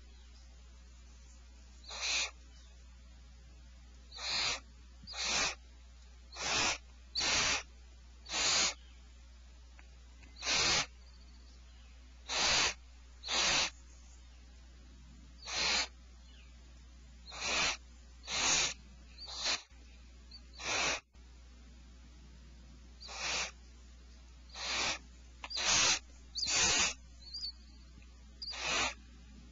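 Barn owls giving harsh hissing screeches in a nest hollow: about twenty rasping calls of roughly half a second each, coming at irregular gaps, some in close pairs.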